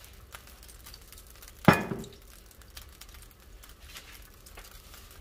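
A nonstick frying pan gives one sharp clink with a brief ring about a second and a half in, among faint crackling of cooking oil warming in the pan.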